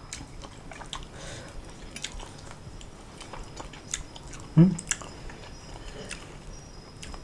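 A person chewing fried baby salir fish with rice close to the microphone: soft chewing with many small crisp clicks. A short hum from the voice comes about halfway through.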